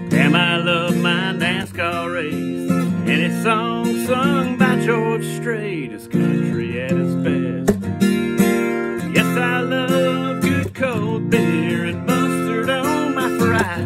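Acoustic guitar strummed in a steady rhythm, with a man singing a country song over it.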